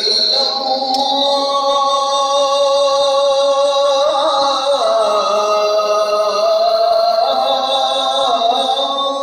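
A single male voice chanting in Arabic over mosque loudspeakers, holding long melodic notes that slide slowly up and down in pitch.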